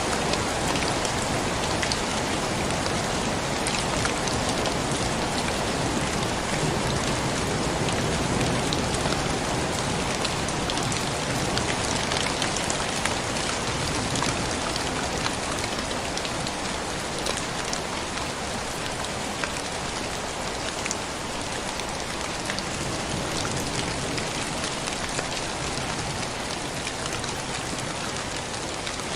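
Steady rain falling, with scattered drops ticking on surfaces.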